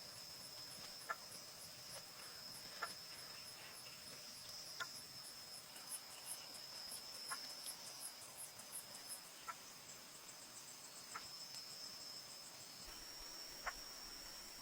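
Insects trilling: a steady high drone with faster pulsed chirping above it, which stops about two-thirds of the way through. Faint short ticks sound about once every second or so.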